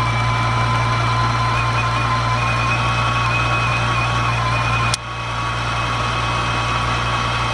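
Steady machine hum with a high whine over it, broken by a short click about five seconds in.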